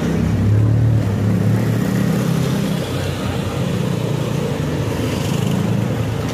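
Motorcycle and scooter engines running close by in street traffic, a steady engine note that shifts slightly in pitch, over low rumble.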